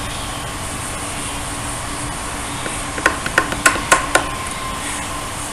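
Wooden mallet striking a chisel to carve a wooden printing block: about five sharp knocks in quick succession about halfway through, over a steady background hiss.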